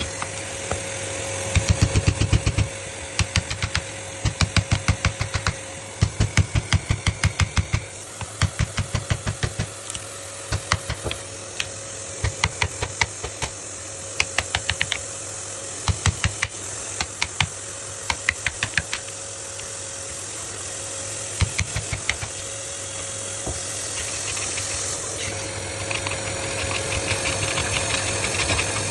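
Runs of sharp knocks, several a second, in short groups with pauses between, over a steady machine hum with a high steady whine.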